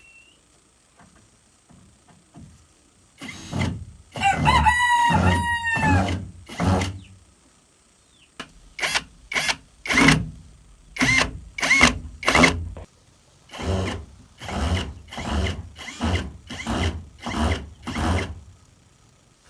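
A rooster crows about four seconds in. It is followed by a long, regular run of noisy strokes, about two a second, typical of hand-tool work on the pen.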